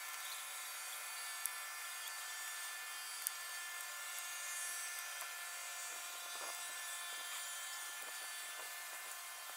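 Steady high-pitched droning of an insect chorus, with a couple of faint clicks.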